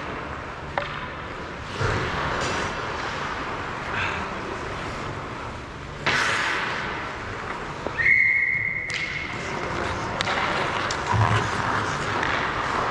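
Ice hockey play: skate blades scraping on the ice with scattered stick and puck clacks, then a referee's whistle blows once about eight seconds in, a steady high tone lasting about a second.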